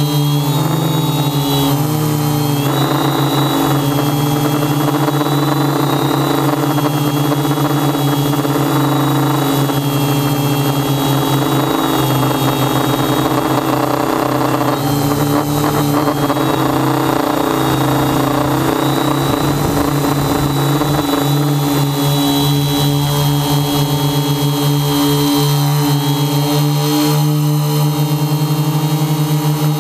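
Electric motors and propellers of a multirotor drone, heard through its onboard camera: a steady, loud buzzing whine whose pitch shifts up and down as the throttle changes, with a few brief dips.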